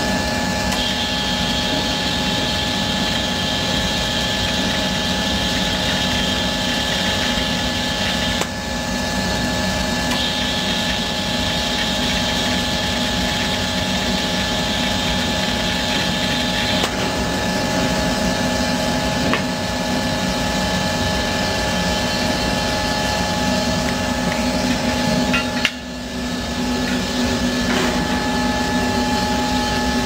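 Steady running of powder coating booth equipment, with several steady hum tones. Over it, an MA3300D electrostatic powder coating gun sprays two long hissing bursts of about seven seconds each, the first starting about a second in and the second about ten seconds in, one burst per side of the workpiece.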